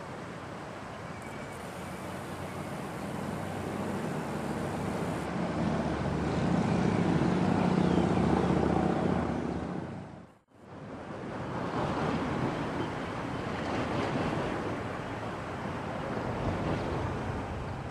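Diesel locomotive engine idling with a steady low hum, mixed with wind rushing on the microphone. The engine sound swells, then drops out briefly about ten seconds in and resumes.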